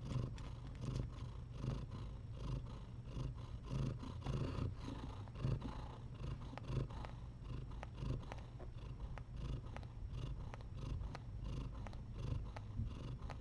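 A mother cat purring steadily while her kittens nurse at her belly. The purr swells and eases about once a second, with faint small clicks scattered through it.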